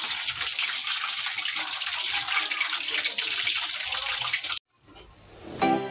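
Hot oil sizzling and crackling steadily as urad-dal medu vadas deep-fry in a kadai. The sizzle cuts off abruptly about four and a half seconds in, and music begins near the end.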